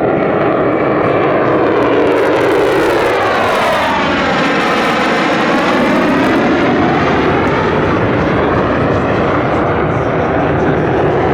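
Lockheed Martin F-35A Lightning II's Pratt & Whitney F135 afterburning turbofan, a loud steady jet roar as the fighter makes a pass. The roar takes on a sweeping, phasing swoosh in the middle seconds as the jet goes by overhead.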